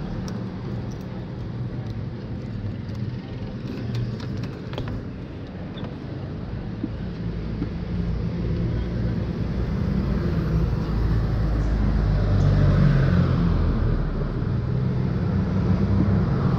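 Street traffic passing close by: a steady engine rumble that swells louder in the second half as vehicles go past. A few light clicks about four seconds in.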